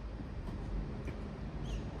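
City traffic on a wet road: a steady low rumble with tyre hiss, and a few faint high chirps, one near the end.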